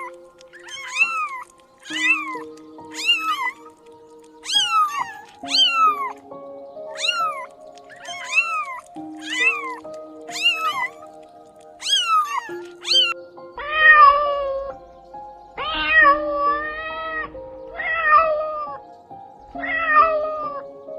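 Domestic cat meowing again and again, short rising-and-falling meows about once a second. From about two-thirds through, the meows become longer and lower. Soft background music with held notes plays underneath.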